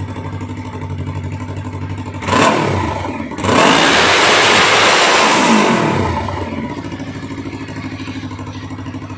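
Yamaha R3's 321 cc parallel-twin engine idling on its stock exhaust. It gets a short throttle blip about two seconds in, then a longer, louder rev that falls back to idle about six seconds in.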